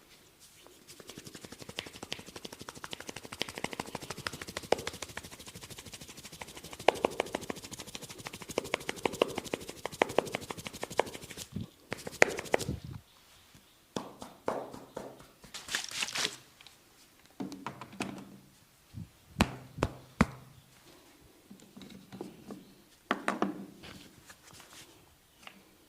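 Hand-percussion massage: a barber's hands striking a client rapidly and evenly, many strikes a second, for about ten seconds. After that come separate, irregular slaps and rubbing strokes.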